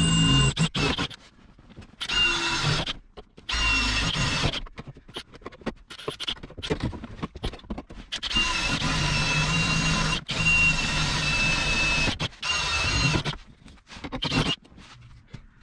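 Ridgid cordless drill boring holes through a thin sheet-metal floor patch, its motor whining in repeated runs separated by short pauses, the longest lasting a few seconds.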